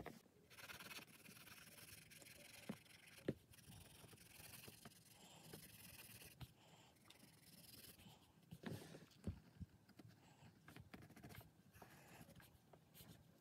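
Faint scratching of a graphite pencil stroking and shading on drawing paper, with a few soft clicks of the pencil against the page.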